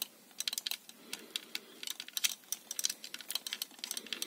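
Quick, irregular plastic clicks from a Bandai Buzz Lightyear model-kit figure being handled, with fingers pressing the chest button that should spring its wings out.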